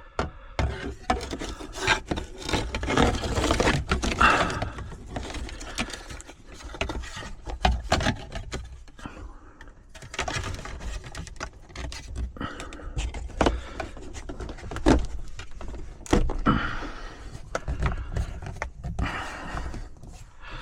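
Handling noises of a truck's interior trim piece being fitted back into place: irregular clicks, knocks and rubbing.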